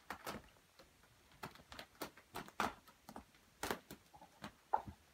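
A kitten's claws hooking into and pulling on fabric curtains as it climbs, giving an irregular run of soft scratches and ticks as the claws snag the cloth.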